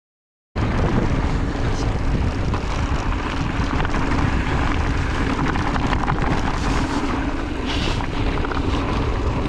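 Begins with about half a second of dead silence, then wind buffeting the rider's camera microphone along with the mountain bike's tyres and frame rattling over a dirt trail at speed, a steady loud rumble.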